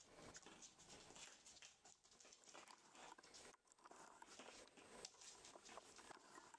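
Faint, irregular clicking and pattering of rough collie puppies' paws and claws on a wooden floor as they play and scuffle over toys.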